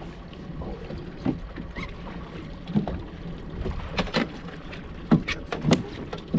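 Boat's outboard motor running steadily at trolling speed, with wind noise on the microphone. About four seconds in comes a quick run of sharp knocks and clicks on the boat.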